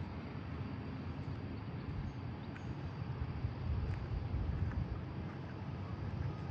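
Boeing 787-8's Rolls-Royce Trent 1000 jet engines running at a distance, a low steady rumble with a faint high whine, as the airliner moves on the ground. Wind gusts on the microphone.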